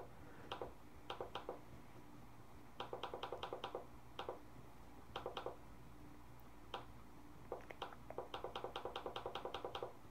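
Computer mouse button clicked over and over: scattered single and double clicks, and two fast runs of about ten clicks a second, around three seconds in and near the end.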